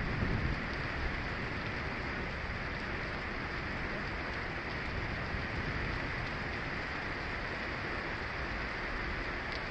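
Heavy rain beating steadily on a vehicle's roof and windshield, heard from inside the vehicle. The tail of a low thunder rumble fades out in the first second.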